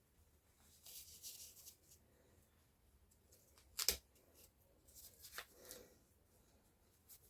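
Quiet scratchy rustling of hair being handled and worked, with one sharp click about four seconds in.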